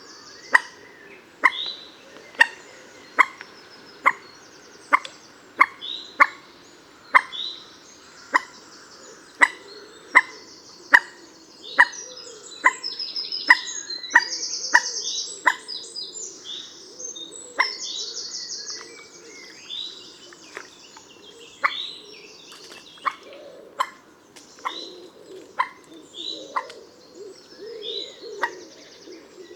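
Common moorhen giving short, sharp calls, about one a second, thinning out in the second half. Higher-pitched trilling notes run through the middle.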